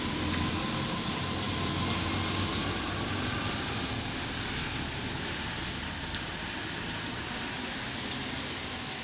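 A car driving past on a wet road, its tyres hissing on the water, over a steady wash of street noise.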